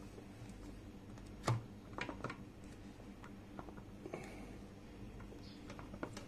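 Faint clicks and knocks of hard plastic as hands work the push-fit tube fitting and end cap of a water purifier's RO membrane housing. There is one sharper knock about a second and a half in, then a quick cluster of clicks.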